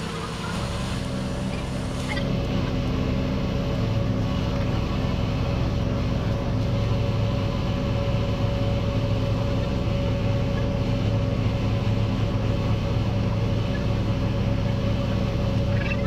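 Small petrol engine of a portable water pump running steadily at a constant speed, pumping water.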